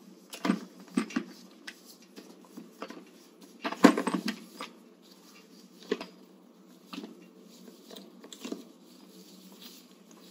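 Towel drying a foot during a bed bath: rustling and patting, with scattered light knocks and clatter from handling. The busiest stretch is about four seconds in, with another cluster just after the start.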